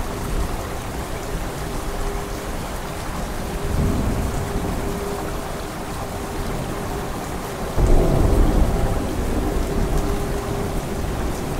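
Steady rain with thunder: a low rumble swells about a third of the way in, and a louder thunderclap breaks suddenly about two-thirds of the way through and rolls on as it fades.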